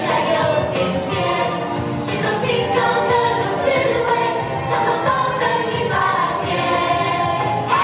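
Live recording of a Mandarin children's pop song: singing over band accompaniment, carrying straight through.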